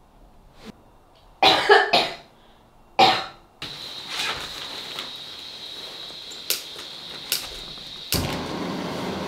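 A person coughing: a quick run of coughs, then one more. After that a steady hiss with a thin high whine, broken by two short clicks, and a louder rushing noise near the end.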